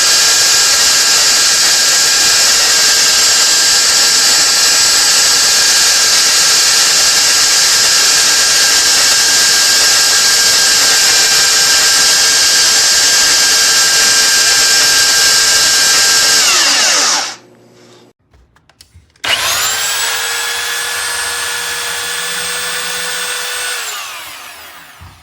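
Black+Decker DS321 belt sander's brushed electric motor running steadily with a high whine and hiss, then switched off and winding down with falling pitch. A couple of seconds later it is switched on again, spins up with rising pitch, runs briefly and winds down again. The owner says this sander's bearing is blown out.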